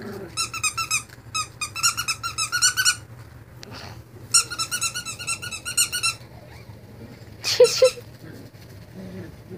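Squeaky plush dog toy squeezed rapidly, about six or seven high squeaks a second, in two runs of a few seconds each. A brief loud sound near the end.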